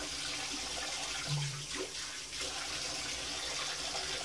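Cold water running from a bathroom tap into the sink as it is splashed onto the face for a rinse: a steady rush of water.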